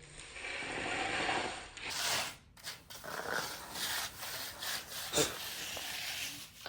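Irregular scraping and rubbing strokes of a finishing tool on fresh concrete, with a break a little under two seconds in.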